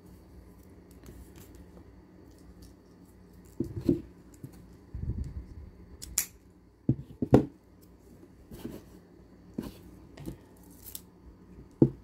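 Scissors snipping the string at a knot on a plastic-bead necklace, with beads clicking as it is handled: scattered short snips and clicks, the loudest a little past halfway.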